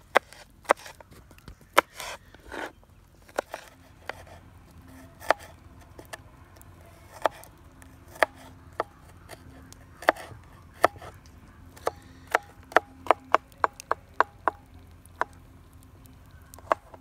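Knife chopping on a cutting board: irregular sharp knocks, about one a second at first and quicker in the second half.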